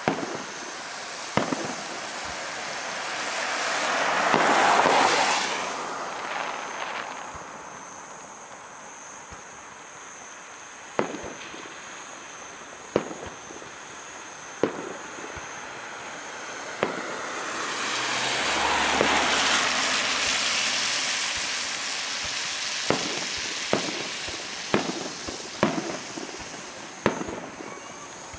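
Aerial fireworks shells bursting: sharp bangs at irregular intervals, several in quick succession near the end. Between them come two longer swells of rushing noise, each lasting a few seconds.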